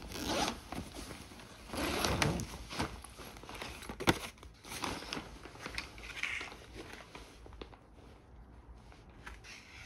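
Rustling and handling of a fabric bag and the packaged items being pulled out of it, with scattered light clicks and one sharp tap about four seconds in; the handling grows quieter near the end.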